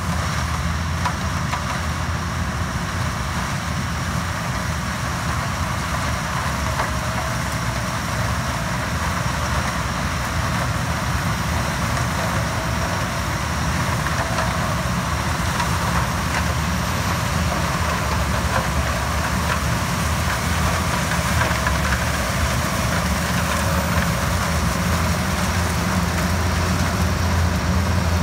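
Yanmar HS2000 sugarcane harvester's diesel engine running steadily, getting slightly louder toward the end.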